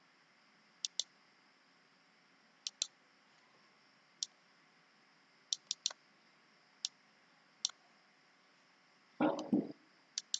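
Scattered sharp clicks from working a computer, about a dozen, some in quick pairs. There is a short burst of voice a little after nine seconds.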